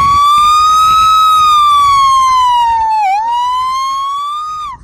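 A boy imitating an ambulance siren with his voice: one long siren-like tone that rises, slowly falls, dips briefly about three seconds in, then rises again and breaks off near the end.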